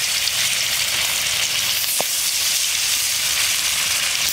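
Spice-coated magur catfish steaks frying in hot oil, a steady loud sizzle, with one short sharp tick about two seconds in.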